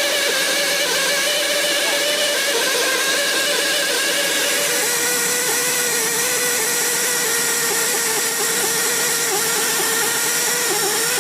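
Small electric power-tool motor running steadily, its pitch dropping slightly about five seconds in and wavering afterwards, as if put under load.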